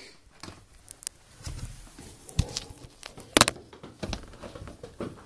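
Phone handling noise: fingers rubbing and tapping on a phone held with a hand over its lens and microphone, an irregular string of clicks and knocks with low rustling, the loudest knock about three and a half seconds in.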